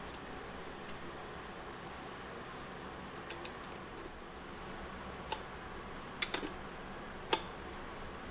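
A few small metallic clicks and taps as the fitting on a digital readout's mounting arm is tightened and the display is tilted into position, the loudest pair about six seconds in and a last sharp click near the end, over a steady background hum.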